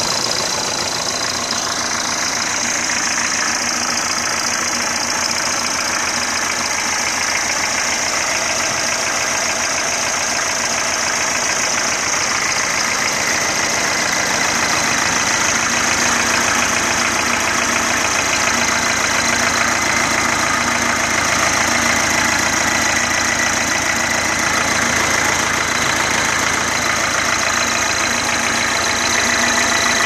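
MTZ-50 tractor's four-cylinder diesel engine running steadily, with the clatter of the diesel and a steady high-pitched turbocharger whistle over it. It gets slightly louder about halfway through.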